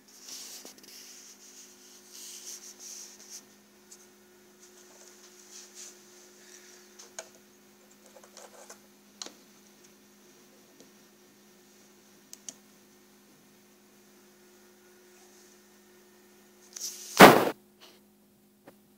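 Steady low electrical hum with rustling and a few scattered clicks of handling, and one loud knock near the end.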